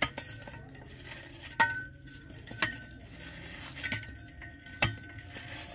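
Sharp metallic clinks, about five spread over a few seconds, each with a short ringing after it: metal knocking against the iron pipe work of a hand-pump borehole.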